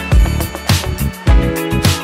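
Background music with a steady drum beat, a bass line and cymbals, at about two beats a second.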